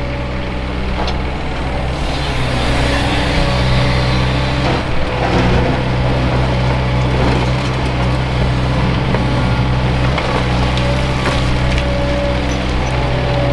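JCB JS210 tracked excavator's diesel engine running steadily under load as the machine swings and digs, with a few light knocks from the bucket and dirt.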